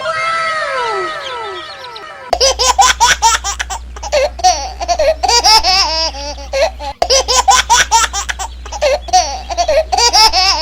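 A cartoon sound effect of several whistle tones sliding down in pitch. About two seconds in it gives way to a looped clip of a baby giggling and laughing over a low steady hum, the loop restarting with a brief break about halfway through.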